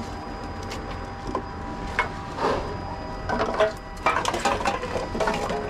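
Reverse vending machine humming steadily as a drink container is fed in and accepted, with knocks and clinks of plastic bottles and cans being handled, the clatter growing busier in the second half.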